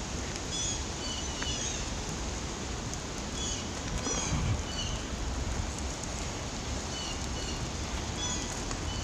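Steady hiss of rain falling, with short high bird chirps in a few small groups.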